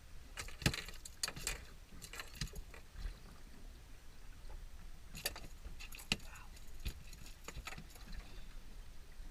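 Scattered light clicks and knocks as a landed smallmouth bass and fishing tackle are handled on a small fishing boat's deck, over a low steady rumble of wind and water.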